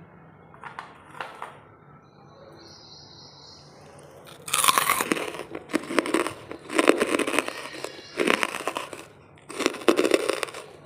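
Lumps of charcoal being bitten and chewed: a quiet start with a few light clicks, then four loud crisp crunches in the second half.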